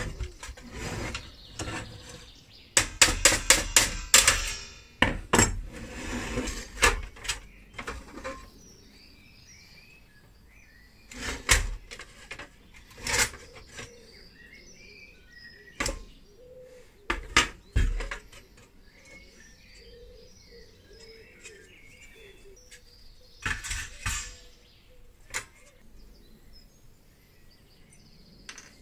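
Clanks and rattles of a sheet-steel toy cash register's parts being handled and taken apart, with a dense run of knocks a few seconds in and scattered single knocks after. Birds chirp faintly in the background.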